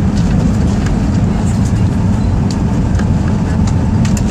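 Cabin noise of an Airbus A321 rolling slowly on the ground after landing: a steady low rumble from the idling jet engines and the wheels on the pavement, with a few faint clicks and rattles.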